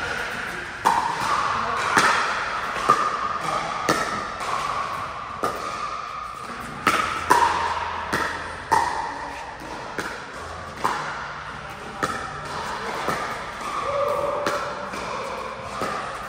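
Pickleball doubles rally: paddles hitting the hollow plastic ball, a sharp pop about once a second, echoing in a large hall.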